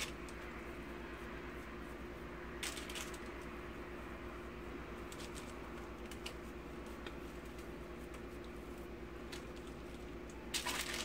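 Faint rustling of parchment paper and soft handling sounds as biscuit dough is shaped and set down by hand, over a steady low hum. Brief louder rustles come about three seconds in and again near the end.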